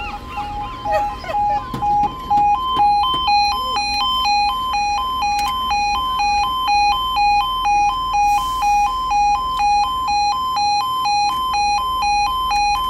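Level crossing's electronic audible warning alarm sounding: a pulsing single tone that switches a couple of seconds in to a two-tone warble, alternating about twice a second, then cuts off suddenly. Birds call over the start.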